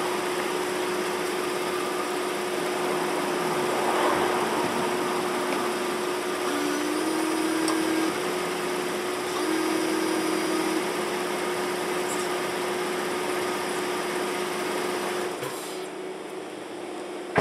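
2010 Ford Fusion Sport's V6 idling with a steady hum. Twice a lower whine joins for about a second and a half each: the windshield washer pump spraying fluid through the repaired hose as a test. The running sound drops off near the end, and a single sharp knock follows at the very end.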